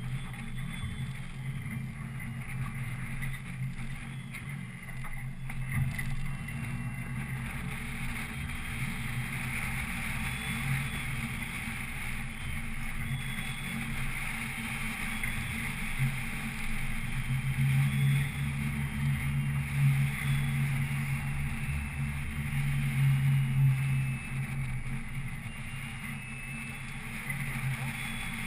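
A boat motor running steadily with a low hum and a steady hiss. The hum grows louder for several seconds in the second half, then eases back.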